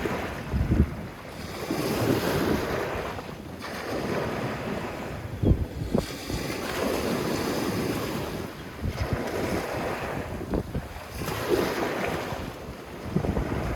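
Sea waves washing onto a sandy beach, the surf swelling and ebbing every few seconds. Wind buffets the microphone in short low thumps several times.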